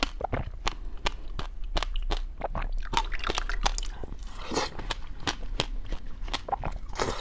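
Dry, powdery white ice (freezer frost) being chewed close to the microphone: rapid sharp crunches, about three or four a second, with a few longer grinding crunches about halfway through and near the end.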